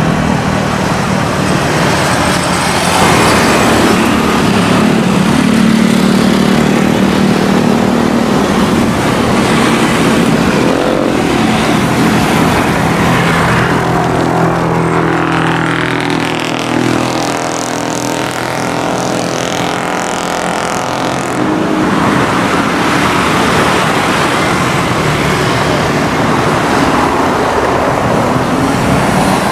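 Beechcraft King Air 350i's twin Pratt & Whitney PT6A-60A turboprops running at taxi power: a steady propeller drone with engine whine, the drone shifting in pitch for a while midway.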